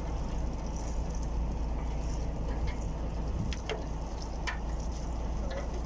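Fishing boat's engine running with a steady low drone, with a few short knocks and clicks about halfway through as the gillnet and catch come aboard.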